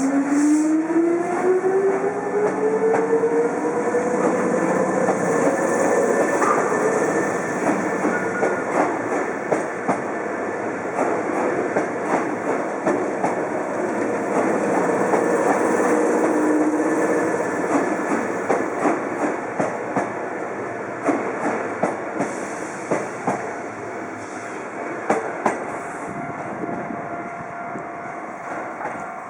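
Electric commuter train pulling away: its motor whine climbs steadily in pitch over the first several seconds. Then the wheels click over the rail joints in a long run of clacks that slowly fades as the train draws away.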